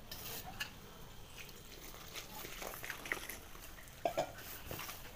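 Hands mixing and kneading maida flour with water in a steel bowl: faint, irregular rustling and soft squishing of the crumbly, half-wet dough.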